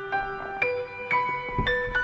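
Soft background piano music, single notes struck about twice a second and left to ring.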